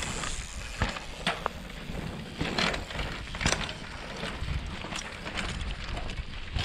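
Mountain bikes riding past over bumpy dirt: scattered clicks, knocks and rattles from the bikes over a low rumble.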